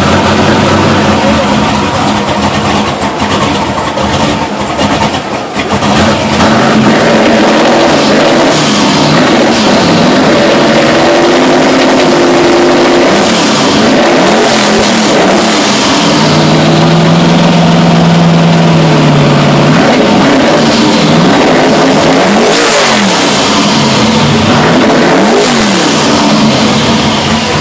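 Chevrolet Silverado pickup's engine idling, then being revved: it is held at a steady higher speed for a few seconds about midway, then blipped up and back down several times near the end.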